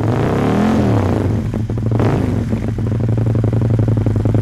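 2009 Aprilia Tuono 1000R's V-twin running through Mivv carbon fibre exhaust cans with the baffles removed. It is revved quickly once near the start and then settles to a steady idle.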